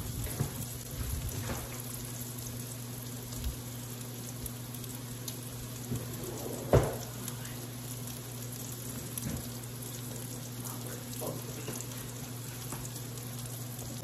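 Bacon and diced onions frying in bacon grease in a cast-iron skillet, a steady sizzle over a steady low hum. A single sharp knock sounds about seven seconds in.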